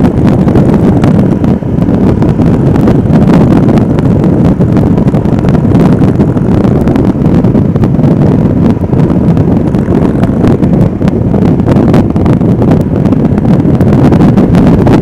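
Royal Enfield Himalayan motorcycle being ridden at speed: its engine running steadily under a heavy rush of wind across the helmet microphone.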